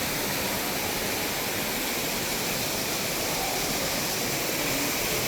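Steady rushing of falling water, as from a waterfall in the exhibit.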